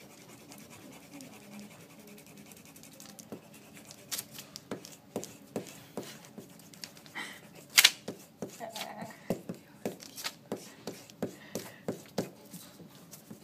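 Pencil drawing on paper being rubbed out with an eraser: fast scrubbing strokes with irregular sharp taps against the table, busier from about four seconds in, the loudest tap about eight seconds in.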